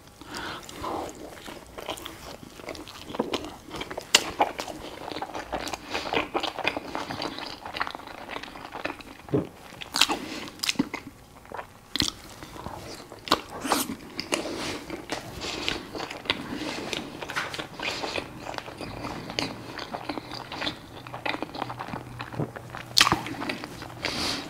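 A person biting into and chewing a cheeseburger close to a clip-on microphone: wet mouth sounds broken by irregular sharp clicks.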